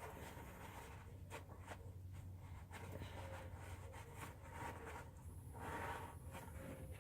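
Faint rubbing and scraping with a few light clicks: hands wiping off residue and handling parts on the engine.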